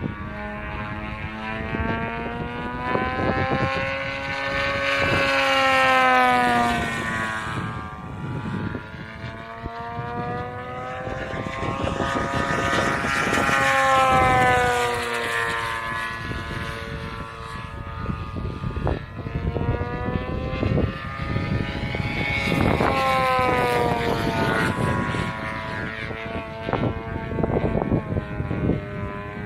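Two-stroke twin-cylinder DA-70 petrol engine of a large Laser EXP aerobatic RC plane in flight, its pitch rising and falling with throttle changes and passes. It swells loudest about six and fourteen seconds in.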